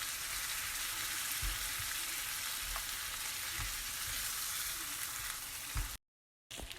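Food sizzling in a hot frying pan, with a few soft knocks of a utensil stirring it. It cuts off abruptly about six seconds in and returns as a quieter sizzle.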